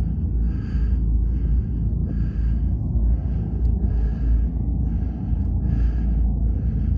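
Heavy rhythmic breathing, each breath a short breathy pulse a little faster than once a second, over a steady low rumble.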